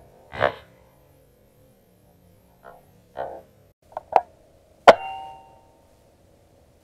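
SVD-style airsoft sniper rifle firing a single shot, a sharp crack with a short metallic ring, preceded by two quick clicks of the rifle being handled.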